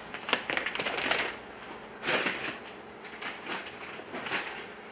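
Granular filter media (Chem-Sorb) poured from a plastic bag through a funnel into a filter tank: the granules hiss down into the tank with the bag crinkling, loudest in the first second or so, then a few shorter rustles of the bag.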